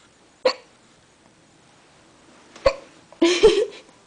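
A person hiccuping: two short, sharp hiccups about two seconds apart, then a longer breathy vocal sound near the end.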